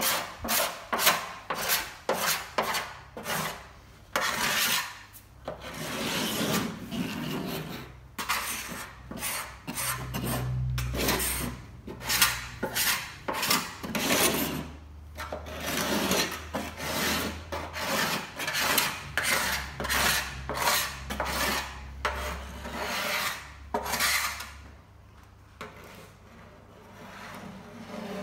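A small steel scraper blade is drawn over the steel skin of a VW Beetle engine lid, scraping off paint softened by chemical paint stripper. It goes in quick repeated strokes, about two a second, with a few longer drawn strokes among them, and pauses briefly near the end.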